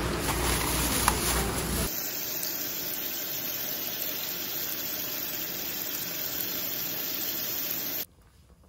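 Kitchen tap water running steadily onto scallops and clams in a sink, cutting off suddenly near the end. It is preceded by about two seconds of loud, rumbling bustle at a seafood stall.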